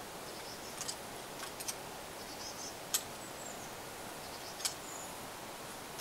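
Small birds chirping in short, quick high series with an occasional brief whistle, over quiet outdoor background. A few sharp clicks stand out; the loudest comes about three seconds in.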